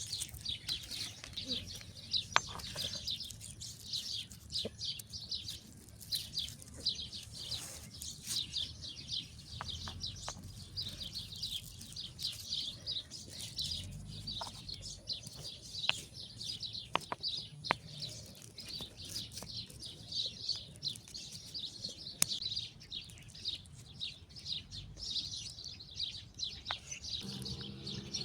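Small birds chirping continuously in rapid high-pitched notes, with a few scattered sharp clicks.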